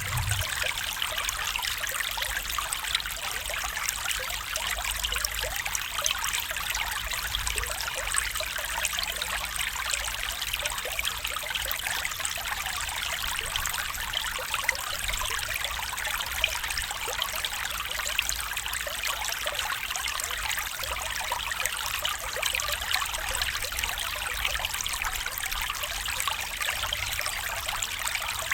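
A stream trickling steadily.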